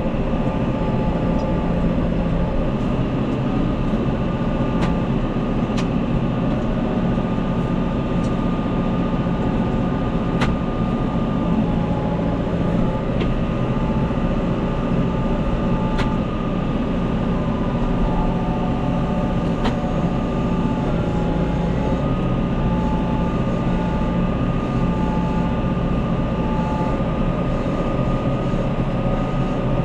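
Farm tractor engine running steadily under load while hay bales are moved, with a few faint clicks and knocks.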